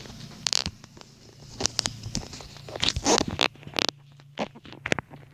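Handling noise: a series of irregular rustles, scrapes and knocks as the camera and things close to it are moved about by hand, over a faint steady low hum.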